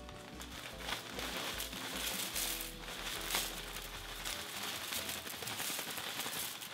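Dry oak leaves rustling and crackling as they are poured out of a plastic bag into a plastic tub, with the bag crinkling, over background music.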